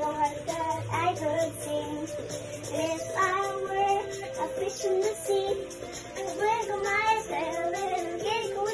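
A child's singing voice over backing music: a young girl singing a children's song along with a music track.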